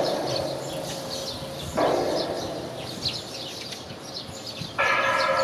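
Small birds chirping throughout, with two short rushing bursts of noise, one at the start and one about two seconds in. A steady siren-like tone with several overtones comes in near the end.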